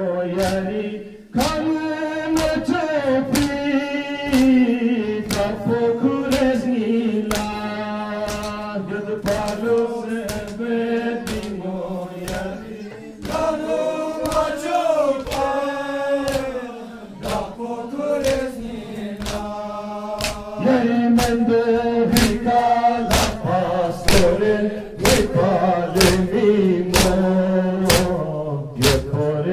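A Balti noha, a Shia lament, chanted by a group of men in unison. A regular beat of sharp slaps runs under it: hands striking chests in matam, in time with the chant.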